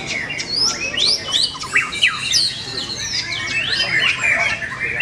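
Caged white-rumped shamas singing at once: a loud, dense chorus of overlapping clear whistles and quick rising and falling sweeps, with no pause.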